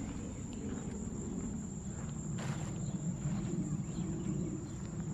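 Steady high-pitched insect trill of crickets over a low background rumble, with a single light knock about two and a half seconds in.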